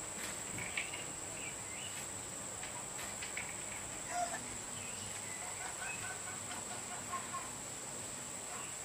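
Outdoor rural background: a steady, high-pitched insect drone with scattered short bird calls, the most prominent about a second in and about four seconds in, and a few faint clicks.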